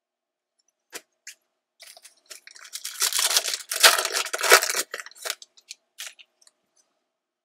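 The foil wrapper of a Panini Illusions basketball card pack being torn open and crinkled by hand, after a couple of light clicks about a second in. The crackling tear is loudest in the middle.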